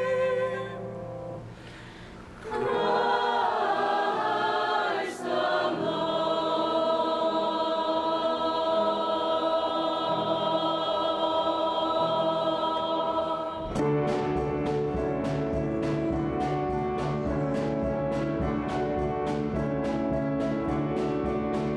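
Choir singing with sustained chords. About two-thirds of the way through, a quick, steady beat of light percussion joins in, about three strokes a second.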